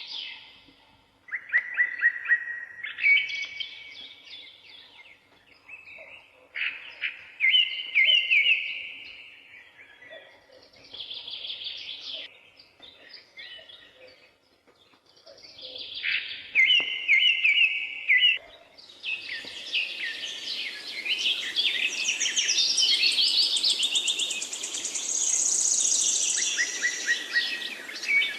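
Forest songbirds singing in short repeated phrases, some as quick trills. From about two-thirds of the way through, several birds sing over one another against a steady hiss of background noise.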